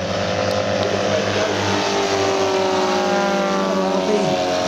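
Engines of two 30% scale radio-controlled Boeing Stearman biplane models flying past in formation. Their pitch falls steadily as they go by.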